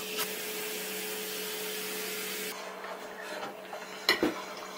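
Cola poured from a plastic bottle over ice in a glass mug, fizzing with a steady hiss that stops sharply about two and a half seconds in. About four seconds in comes a pair of quick clinks as the iced glass is picked up.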